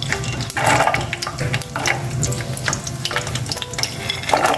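Cashews and almonds poured by the handful into hot ghee in a steel pot, frying with a hiss and the clicks of nuts dropping in, louder with each pour, three times.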